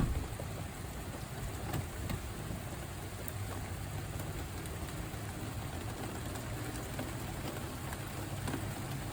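Steady rain falling: an even hiss with scattered faint drop ticks over a low rumble.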